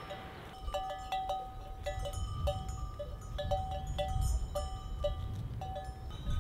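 Small metal bells on grazing goats clanking unevenly, a few strikes a second, starting about half a second in.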